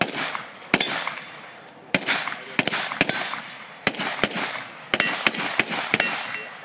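AR-15 rifle firing about fifteen semi-automatic shots at an irregular pace, some in quick pairs, each shot trailing off in echo; the firing stops about six seconds in.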